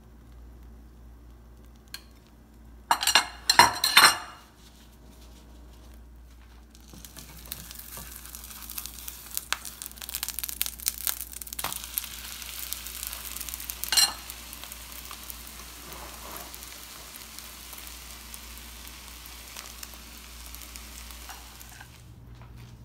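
A quick run of loud clatters of cookware about three seconds in, then food sizzling in a hot frying pan from about seven seconds on, with occasional taps and scrapes of a utensil.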